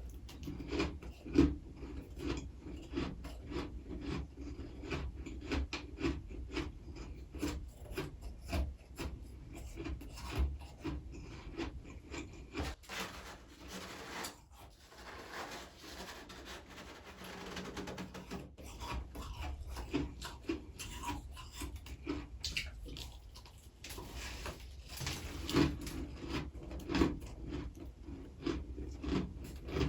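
Close-miked crunching and rasping of freezer frost, in quick, repeated crisp strokes, with a steadier rasping stretch about halfway through.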